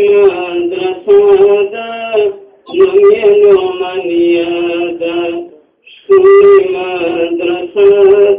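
Pashto naat sung by a single voice with no instruments, in long held, melismatic phrases, with short breaths between phrases about two and a half and six seconds in.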